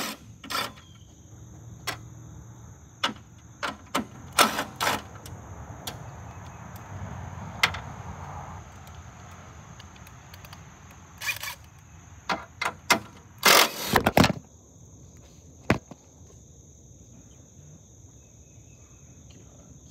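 Cordless impact driver with a 13 mm socket running in short bursts as it backs out the radiator bolts. The longest and loudest burst comes about two-thirds of the way through. Crickets chirp steadily underneath.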